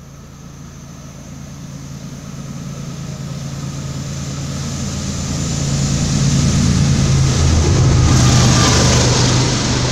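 BNSF freight train's diesel locomotives approaching and passing beneath, a steady low engine drone with rumble that grows steadily louder and is loudest about eight seconds in as the locomotives go under.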